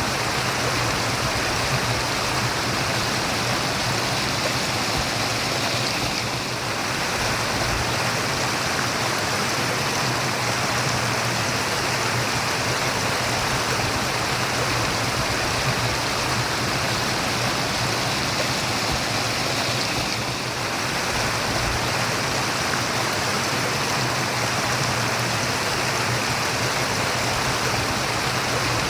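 Running water murmuring steadily, the constant even rush of a stream, easing very slightly twice.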